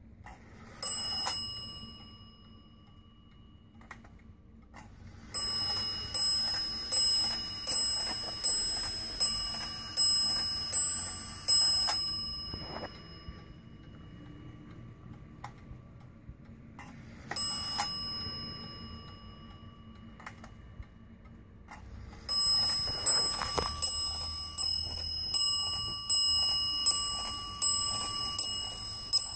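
Dutch Zaanse wall clock striking on its bell as its hands are turned forward. A single strike, then a run of about a dozen ringing strokes about half a second apart, another single strike, and a second run of about a dozen strokes, with faint ticking in the gaps.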